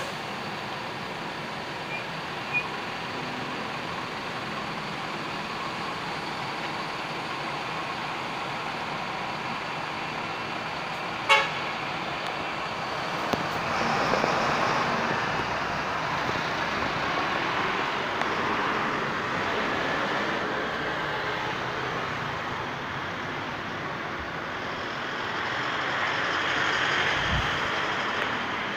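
City street traffic noise: a steady rumble of engines and tyres. A short horn toot sounds about eleven seconds in and is the loudest moment, and two faint short beeps come about two seconds in.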